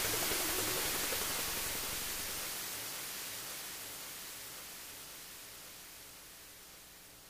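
Electronic music ending on a wash of synthesizer noise like hiss, with a faint low pulsing figure underneath, fading out steadily.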